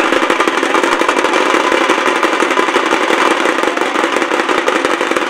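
A dhol-tasha drum band in full swing: many tashas beaten with sticks in a fast, dense, unbroken roll, with dhol strokes mixed in.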